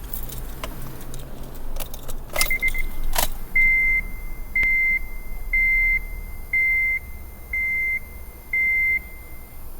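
Keys jangling and a few clicks, then a 2007 Honda Civic's warning chime beeping steadily, six beeps about once a second. No cranking or engine is heard, fitting a car that won't start after its battery light came on.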